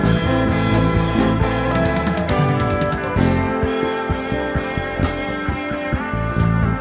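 Live worship band playing an instrumental passage between sung lines, with a drum kit keeping a steady beat under sustained keyboard and guitar chords.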